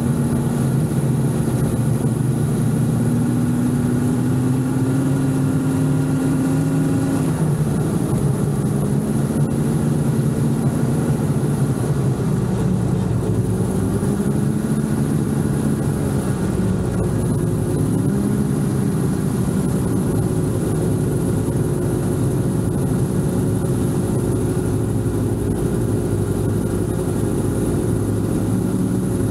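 Snowmobile engine running at low speed, its pitch wavering gently up and down without a hard rev.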